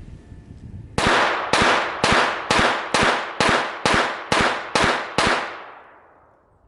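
Glock 44 .22 LR pistol fired ten times in steady succession, about two shots a second, the last shot's report fading over about a second. The pistol is caked with mud and still fires every round without a stoppage.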